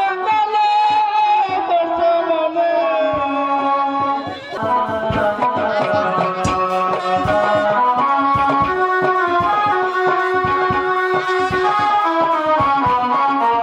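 Live jatra stage music: a melodic instrument plays a sliding, held line, and about four and a half seconds in hand drums join with a quick, steady beat under the melody.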